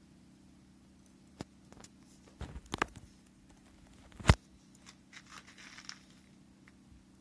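Wood at a bonfire crackling and snapping in scattered sharp pops. A cluster comes a little before the middle, the loudest snap follows about four seconds in, and fainter crackles come after it.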